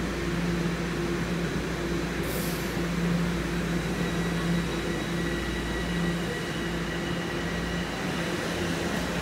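TTC subway train pulling out of an underground station, with a steady electrical hum and a faint high whine from its motors. A short hiss of air comes about two seconds in.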